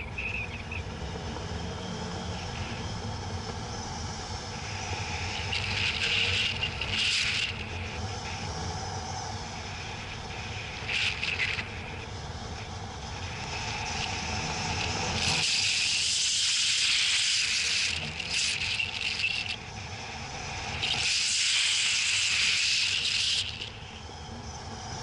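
Wind rushing over a hang glider in flight and onto its wing-mounted camera: a steady low rumble, with louder rushing hiss swelling several times, longest in the second half.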